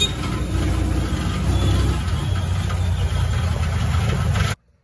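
Motorcycle tricycle (sidecar taxi) running along a street, heard from inside the sidecar: a steady low engine rumble with road noise. It cuts off suddenly near the end.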